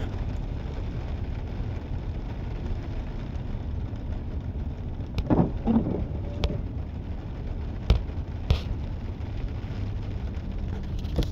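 Freight train of loaded trash-container cars rolling past, a steady low rumble heard from inside a car, with a few sharp clicks in the second half.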